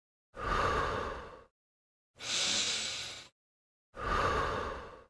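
A man breathing hard with the effort of a dumbbell exercise: three evenly paced breaths about a second each, alternating between a lower, fuller breath and a hissier one, with short silent gaps between.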